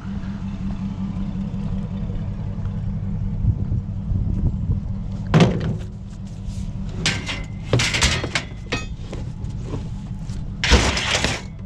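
Vehicle running with a steady low drone, broken by several short, loud, noisy clatters or bangs, the last and loudest near the end.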